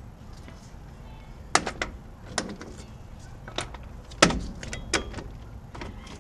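Scattered sharp metal clinks and knocks from tools and a freshly removed bolt being handled around a truck's front suspension, about seven in all, the loudest about four seconds in.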